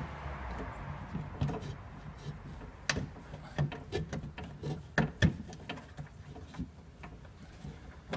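Irregular clicks and knocks of plastic and metal inside a Nissan Murano Z51 front door as a hand works in the door cavity, fitting the nylon clip of the outside-handle linkage at the lock. The loudest knocks come about three seconds in and again around five seconds.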